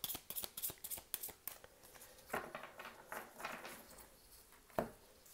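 Oracle cards being shuffled by hand: a quick run of soft card flicks that slows into a few looser rustles, with one louder tap near the end.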